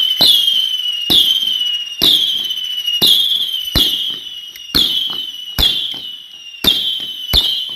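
Class B firework cake firing shot after shot, about nine sharp reports spaced roughly a second apart. Each report is followed by a high hissing crackle that trails off.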